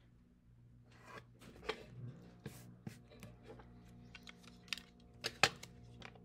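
Clear plastic rolling ruler and paper being handled and slid on a wooden table, with pencil strokes along the ruler's edge: scattered taps, scrapes and clicks, the loudest a sharp click about five and a half seconds in.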